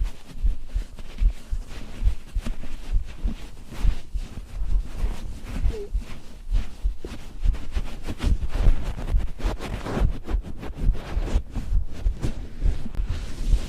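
A person's heartbeat picked up by a microphone pressed against the chest: repeated low, dull thumps. Crackling handling and rustling noise rubs against the microphone, thickest about ten seconds in.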